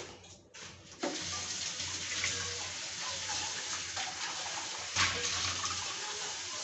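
Water running steadily from a kitchen tap into a sink, starting about a second in and briefly louder about five seconds in.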